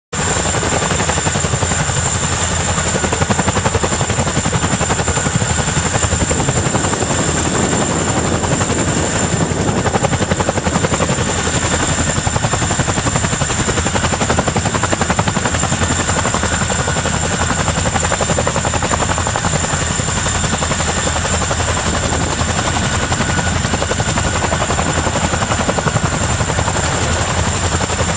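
CH-47 Chinook tandem-rotor, twin-turbine helicopter hovering low overhead: a steady, rapid rotor chop with a high whine over it.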